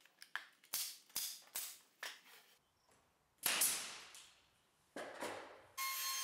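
Pneumatic 18-gauge brad nailer driving brads into a plywood drawer box: a quick run of about five sharp shots half a second apart, then two louder shots with longer tails a second and a half apart. Near the end a compact router starts running steadily with a whine.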